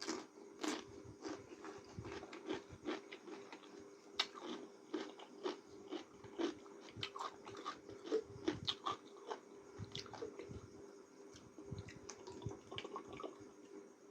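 Close-miked chewing and mouth sounds of a person eating instant noodles: many short, irregular wet smacks and clicks, several a second, over a faint steady hum.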